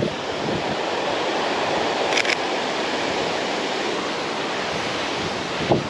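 Steady rushing of wind and a mountain stream, with a faint click about two seconds in and a short bump near the end.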